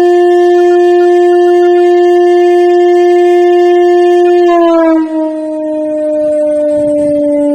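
Motor siren sounding as a time signal: a loud, steady wail with one held pitch. About four and a half seconds in, the pitch drops a little and keeps sliding slowly lower.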